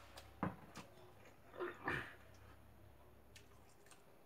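A few light clicks and knocks of eating at a table of stainless steel dishes, the loudest pair about two seconds in.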